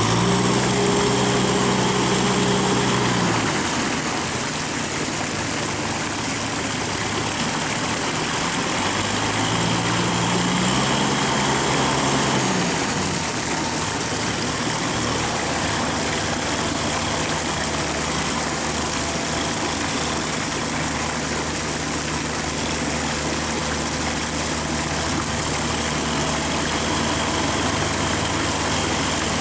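Kubota tractor's diesel engine running steadily as it pulls a plough through a flooded paddy on steel cage wheels. Its note grows louder and slightly higher twice: for the first few seconds, and again about ten seconds in.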